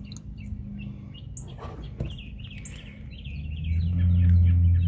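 A mockingbird chirping and singing repeatedly. About three seconds in, a low rumble swells up and becomes the loudest sound.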